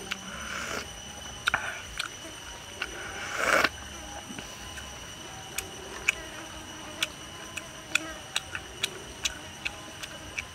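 Soup slurped from a coconut-shell bowl, twice in the first few seconds, then eating with bamboo chopsticks: a run of light, irregular clicks.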